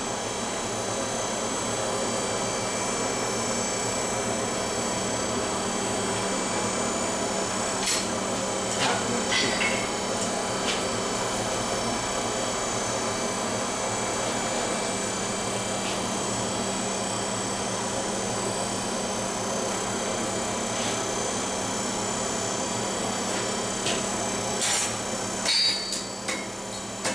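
Steady rushing noise of a running forge, with a few sharp metallic clinks of steel being handled about eight to ten seconds in and several more near the end.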